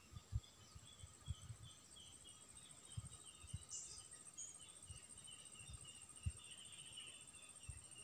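Faint forest ambience: a steady high insect buzz with scattered short bird chirps. Soft low thumps come now and then, the loudest about half a second, a second and a third, and six seconds in.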